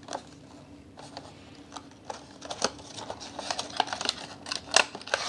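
Cardboard and plastic packaging of a die-cast toy car being opened by hand: scattered clicks and scrapes that grow busier, louder and more crinkly from about halfway.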